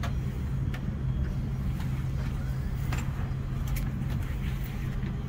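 Steady low hum of an airliner cabin, with a few short light clicks scattered through it.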